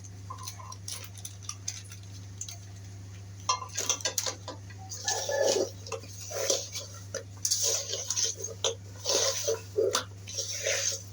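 Wet squishing and light clicking as fish pieces are mixed by hand in a thick spice marinade in a bowl. The sounds are faint and sparse at first and become busier and irregular after a few seconds, over a low steady hum.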